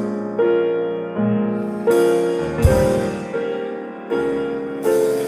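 Piano playing slow chords, a new chord struck a little under once a second, each ringing out and fading before the next.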